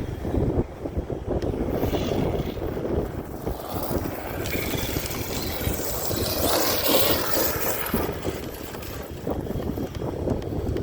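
1/5-scale Arrma Kraton EXB electric RC truck being driven hard over dirt: electric motor whine mixed with tyres scrabbling over the ground, with wind on the microphone.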